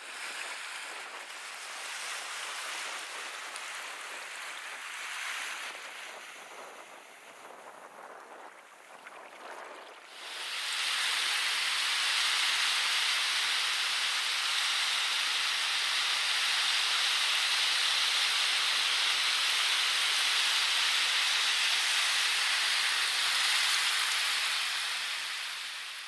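Shallow sea water lapping at the edge of a sandy beach, swelling and easing gently. About ten seconds in it changes to a louder, steady fizzing hiss of shallow water washing over rippled sand close by.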